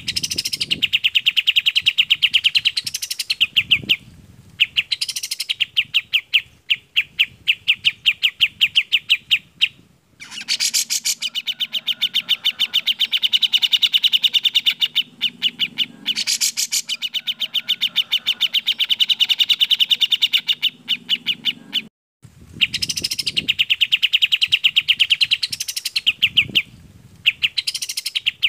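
Recorded song of kapas tembak and cucak jenggot bulbuls: long runs of rapid, clear repeated notes, each run starting with a quick upward sweep, separated by short pauses.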